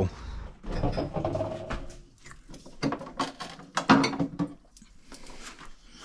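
Irregular knocks and clicks of objects being handled and moved around in a small room.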